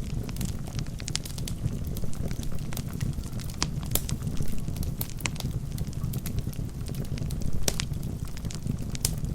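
Wood fire burning in a fireplace: irregular sharp crackles and pops from the logs over a steady low rumble of the flames.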